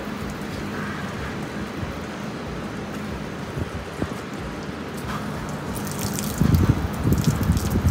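Water spraying from a hose wand against a pickup truck's body, a steady hiss and patter. Wind buffets the microphone from a little past six seconds in.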